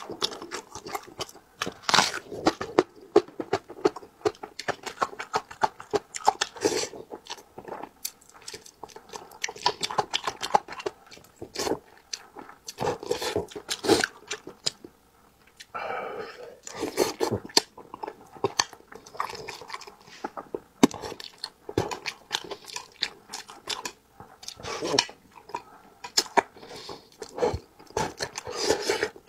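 Close-miked wet chewing and lip smacking of a man eating spicy braised fish, a dense run of short smacks and clicks.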